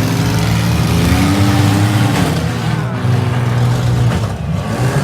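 Minivan engines revving hard in a demolition derby, their pitch rising and falling.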